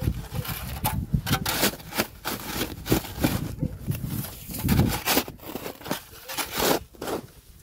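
Irregular crunching in deep snow as a path is trampled and dug out with a shovel.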